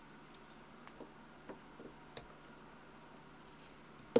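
Light metallic clicks from a Mossberg 183T .410 bolt and a flat steel disassembly tool being handled on a bench mat, about four faint ticks spread over a second or so, then one sharp, louder knock at the very end.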